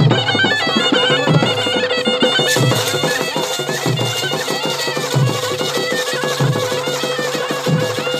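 Gudum baja folk band playing: a shrill shehnai-type double-reed horn plays a wavering melody over a steady drone, with fast, driving drumming underneath.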